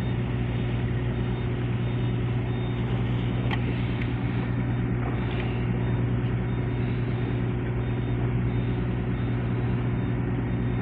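A large engine running steadily: a constant low drone with a strong hum, unchanging throughout, with a couple of faint ticks about three and a half seconds in.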